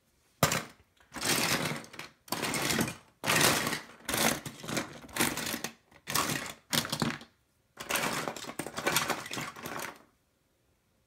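Small plastic toy parts and die-cast toy cars rattling and clattering against each other and the plastic tub as hands rummage through them, in a run of rattling bursts with short pauses between.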